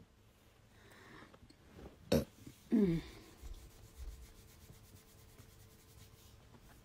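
Phone handling and clothing rubbing as a shirt is pulled up: a sharp knock about two seconds in, then a short vocal sound falling in pitch, and faint rustles after it.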